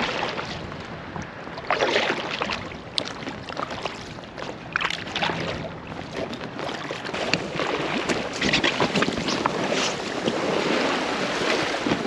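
Double-bladed kayak paddle dipping and splashing in the water at irregular strokes beside an inflatable kayak, with wind buffeting the microphone.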